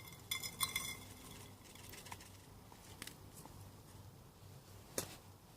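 Camp cookware clinking as coffee is made: a quick run of ringing clinks near the start, then a few scattered clicks and one sharp knock about five seconds in.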